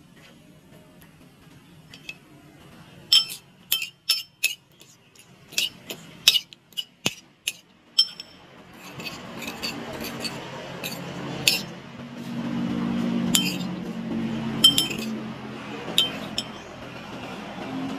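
A metal spoon clinking against the sides of a bowl while beating raw eggs with chopped green onion: sharp, irregular clinks, then from about nine seconds in a steadier stirring wash with clinks still cutting through.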